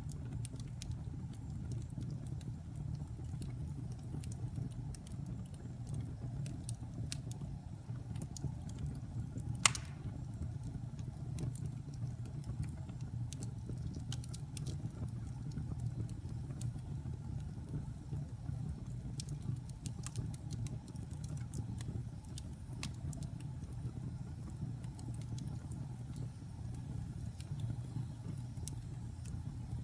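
Fire burning in a fireplace: a steady low rumble of flames with scattered crackles and one sharp pop about ten seconds in.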